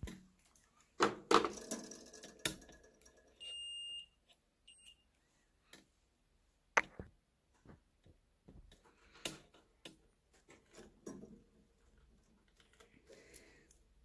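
Digital multimeter's continuity beeper: one steady high beep of about half a second, three and a half seconds in, then a short blip. The beep signals a closed circuit between the probes. Scattered sharp clicks and knocks of test leads and clips being handled come between, the loudest about a second and seven seconds in.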